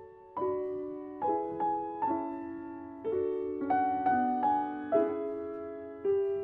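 Solo piano playing a slow, gentle piece: single notes and chords struck about one to two times a second, each ringing and dying away.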